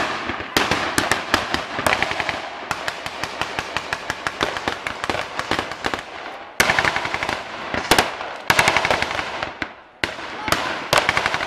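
Maxim heavy machine guns firing long bursts of rapid, evenly spaced shots, with new loud bursts starting about six and a half, eight and a half and ten and a half seconds in.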